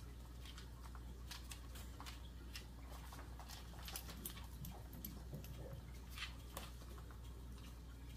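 Irregular light clicking and pattering of dogs' and puppies' claws and paws moving about on the floor, over a faint steady low hum.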